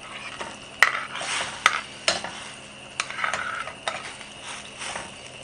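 A ladle scraping slices of duck blood off a ceramic plate into a pot of boiling hotpot broth and stirring, with several sharp clinks of the ladle against the plate and pot and soft splashing, over a steady hiss.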